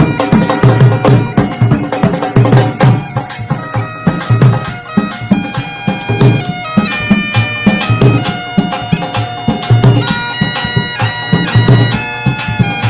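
Background music: a reedy wind-instrument melody of held notes over a steady drum beat.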